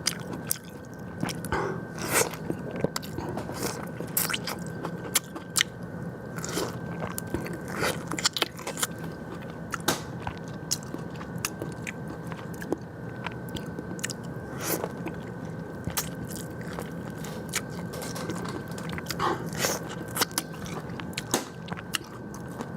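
A person eating a bowl of fresh rice noodles close to the microphone: wet chewing with many short, irregular mouth clicks.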